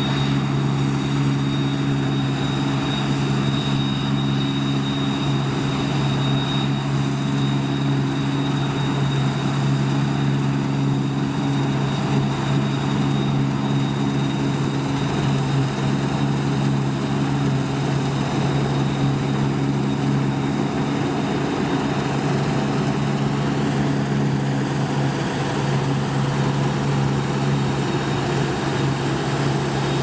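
Deutz-Fahr 5690 HTS combine harvester running steadily while harvesting and unloading grain through its auger, with a John Deere 6215R tractor running alongside at the same pace. The engines and machinery make a steady hum with a faint high whine over it.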